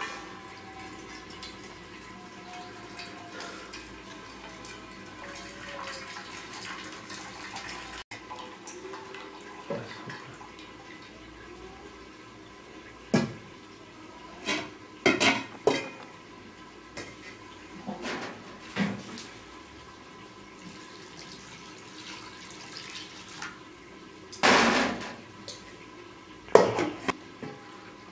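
Aluminium cooking pots and lids clanking and knocking as they are handled, with brownish cooking liquid poured from a large pot into a smaller one near the start and again near the end.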